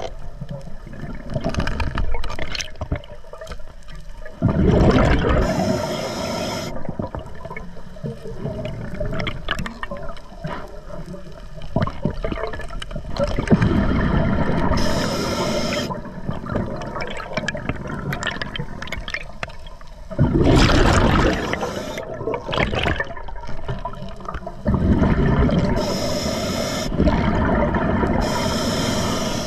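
A scuba diver breathing through an Atomic regulator underwater: a gurgling rush of exhaled bubbles about every six to eight seconds, four times, with short high hisses from the regulator in between.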